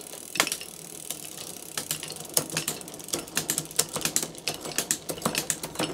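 Bicycle drivetrain with a SRAM Eagle rear derailleur ticking as it is run on the workstand: sharp, uneven clicks, sparse at first and quickening to several a second about two seconds in.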